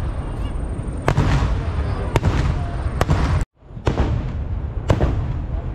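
Kerala festival fireworks (vedikettu) going off in a dense barrage: a continuous rumble of explosions with a sharp, loud bang about once a second. The sound drops out for a split second about halfway through, then the barrage carries on.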